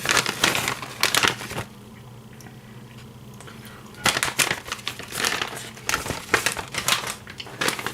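Plastic packet of shredded cheese crinkling as it is handled, in two spells with a quieter pause of about two seconds in the middle.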